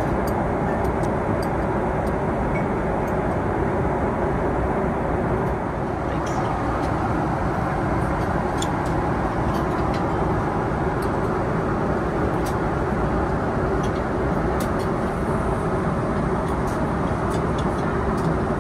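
Steady cabin noise of a Boeing 777 in cruise flight, an even rush of engine and airflow noise, with a few faint clinks of tableware.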